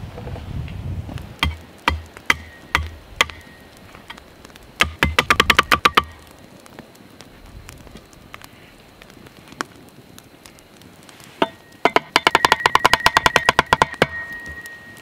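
Hatchet striking a wooden stake to drive it into the ground: a few separate knocks, then two fast runs of rapid strikes, about ten a second, with a ringing tone.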